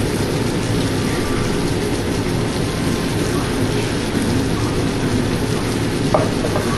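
Chicken liver with onion and tomato sizzling steadily as it sautés in a pan.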